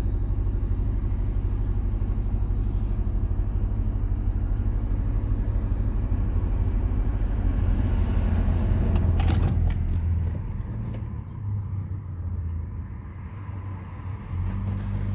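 2005 Nissan Altima's four-cylinder engine idling with only two of its four ignition coils connected, a steady low drone with close-spaced pulses. A few clicks sound about nine seconds in, and the engine sound drops lower for a few seconds before coming back up near the end.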